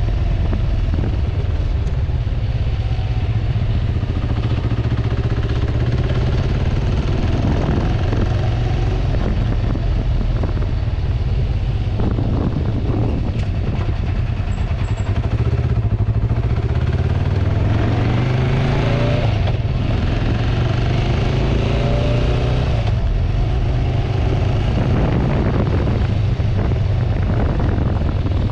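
Kawasaki Vulcan 500 motorcycle's parallel-twin engine running under way. About two-thirds through, its pitch rises as it accelerates.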